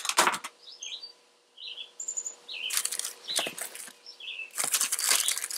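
Packages and items being shuffled and lifted in a plastic storage tote, in several short bursts of rustling, crinkling packaging and light knocks, the longest near the end. Small birds chirp between the bursts.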